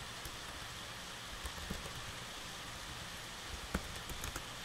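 Steady faint hiss with a few scattered, faint clicks from computer keyboard keys.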